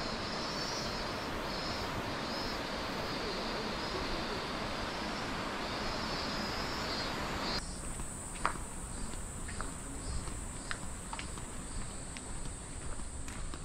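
Outdoor summer ambience: a steady rushing noise with insects calling in regular pulses. About halfway through it changes abruptly to a quieter scene with a high, steady insect drone and light, scattered clicks of footsteps.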